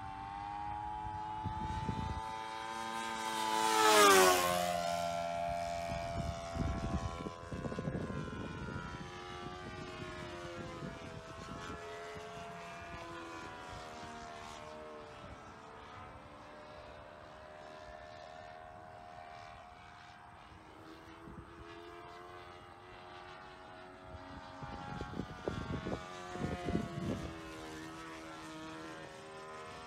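Sportster 60 RC model plane's engine and propeller running in flight, the pitch rising and falling with throttle and distance. About four seconds in the plane makes a close pass: the sound swells to its loudest and the pitch drops sharply as it goes by.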